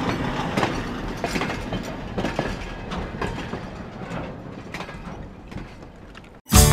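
Railway passenger carriage clanking and creaking, with irregular metallic knocks that fade out over several seconds. Music cuts in suddenly near the end.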